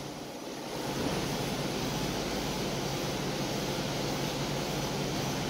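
Steady background noise with no distinct events, a little louder from about a second in.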